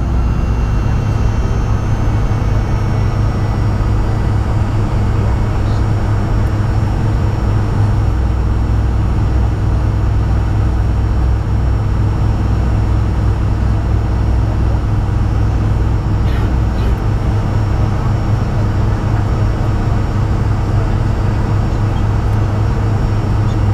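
Fokker 100's rear-mounted Rolls-Royce Tay turbofans running at taxi power, heard inside the cabin as a steady low hum, with a faint high whine at first.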